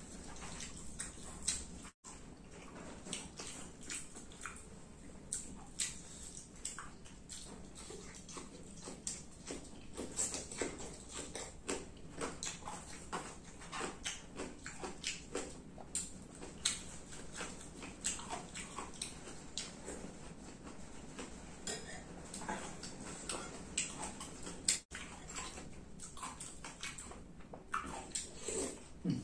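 Eating at a table: hands mixing rice on a plate, with many small scattered clicks and taps of dishes and a spoon.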